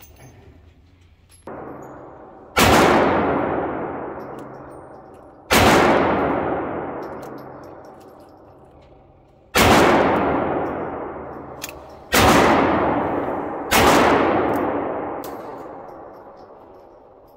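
Handgun shots: five loud shots at uneven intervals, each followed by a long echo dying away over a few seconds, with a fainter shot about a second and a half in.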